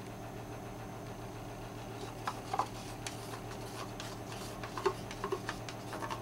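Steady low hum, with a handful of light clicks and taps from about two seconds in as a small hand tool works paint at the edges of a freshly poured canvas.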